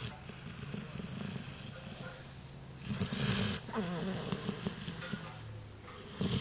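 Sleeping dog snoring, a rapid low fluttering rattle on each breath, with two louder, hissier breaths about three seconds in and near the end.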